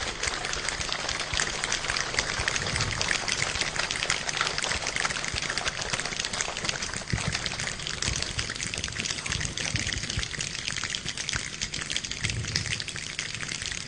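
Rain imitated without water by many people with their hands, a dense patter of snaps, taps and rubbing like falling rain. It thins out somewhat over the second half.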